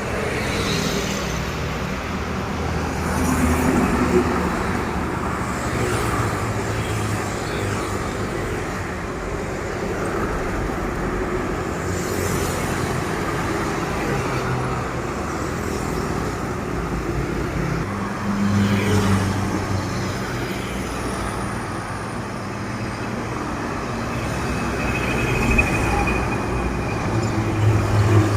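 Road traffic with heavy trucks passing, a steady road noise with low diesel engine rumble that swells as vehicles go by, about four seconds in, again around nineteen seconds, and near the end.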